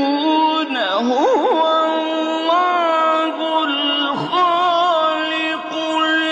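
Male Quran reciter chanting in a melodic, ornamented style: long held notes with wavering melismatic turns.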